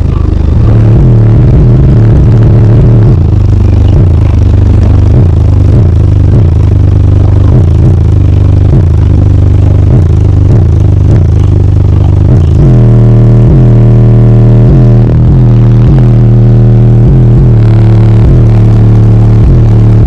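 Bass-heavy music played extremely loud through four 15-inch subwoofers in a sixth-order bandpass enclosure, so loud that the recording is overloaded and distorted. About twelve seconds in, the bass line changes to longer held low notes.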